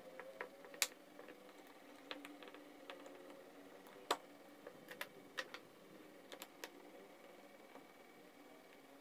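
Scattered small clicks and taps as a Makita HG6003 heat gun is taken apart by hand, its plastic parts and a screwdriver knocking on the workbench. Two sharper clicks stand out, about a second in and about four seconds in.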